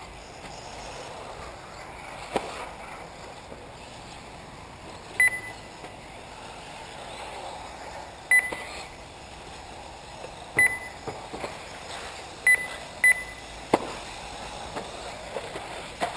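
Short electronic beeps, five of them at irregular intervals, typical of a lap-timing system registering an RC car crossing the timing loop. Under them runs a steady hiss, with a few sharp knocks, the loudest near the end.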